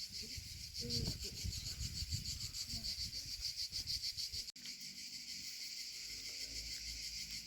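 Insects chirping in a steady, fast pulsing high trill, with rustling as vegetables are handled during the first half. The sound cuts out for an instant about halfway through.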